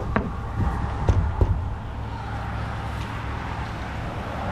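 Wind rumbling steadily on the microphone, with a few knocks in the first second and a half.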